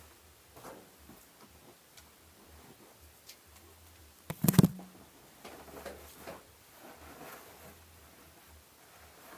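Faint rustling and handling noises of a bed being made, with one loud thump about four and a half seconds in.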